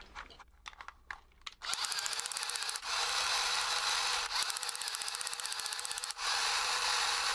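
Small electric gear motors of a 1980s Radio Shack RC tank whirring as they drive the tracks, powered through a rebuilt circuit on a 9-volt battery. A few faint clicks come first; the whir starts a little under two seconds in and shifts in tone, with short breaks, a few times.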